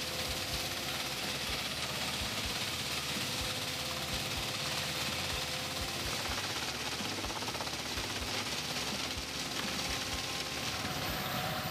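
Tractor-driven wood chipper chipping leafy green branches: a steady machine drone with a loud shredding hiss and rapid, irregular knocks as the wood is cut.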